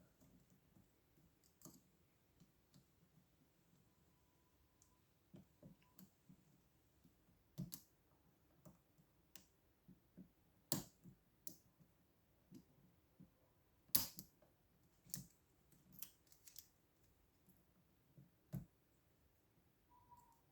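Faint, irregular metallic clicks and taps of a lock pick and tension wrench working inside a lock that resists picking, with a handful of sharper clicks scattered through.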